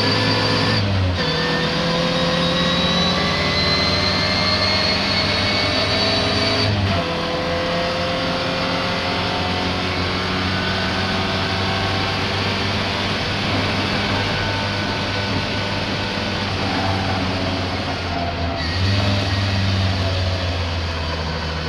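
Racing car engine under load at speed, its pitch climbing slowly and breaking off briefly three times, as at gear changes or lifts off the throttle. The car is described as misfiring.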